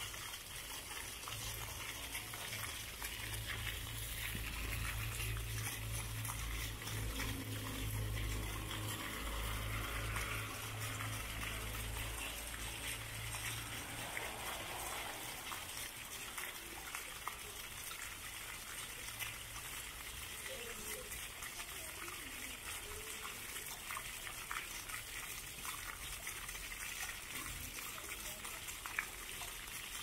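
Several jets of a ground-level plaza fountain rising and splashing back down onto wet paving, a steady rush of falling water. A low hum sits underneath for roughly the first half, then fades.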